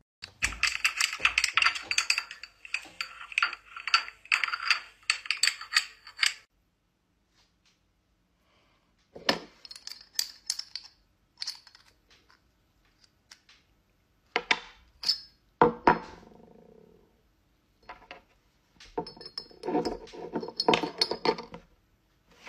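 Scissors snipping through a thin plastic cup in quick clicks, then scissors and a drinking glass being handled and set down on a table, with scattered clinks and knocks.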